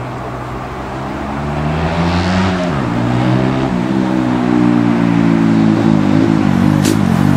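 An engine accelerating and getting louder: its pitch rises, drops sharply about three seconds in, then climbs again.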